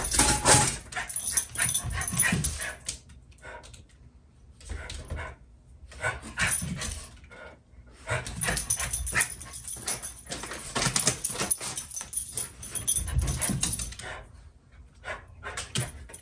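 Two small dogs barking in frantic bouts, alarm-barking at the mail carrier at the door, with short lulls between bouts and a long run of barking in the middle.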